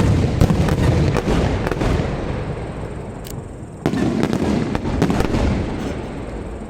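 Aerial fireworks bursting: a sharp bang right at the start, followed by a couple of seconds of crackling, then a second bang about four seconds in with more crackling after it.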